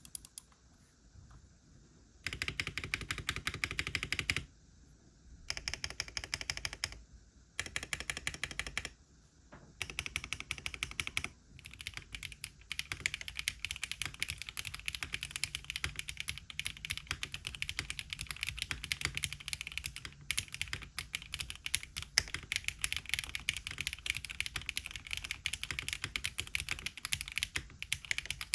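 Custom mechanical keyboard (TGR x Monokei Tomo SE with HMK Candy Red switches and DMK keycaps) being typed on. A few scattered keystrokes come first, then several short bursts of fast typing with pauses between them, and from about eleven seconds in, continuous rapid typing.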